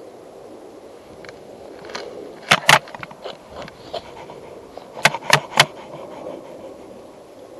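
A series of sharp knocks or clacks over a steady background noise. Two loud ones come close together, a few fainter ones follow, and then three loud ones in quick succession.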